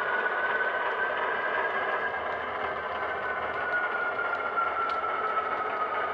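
HO scale model diesel locomotive running along the layout track with a cut of freight cars: a steady whine that slowly drops in pitch, over a hiss of rolling wheels on rail with a few faint ticks.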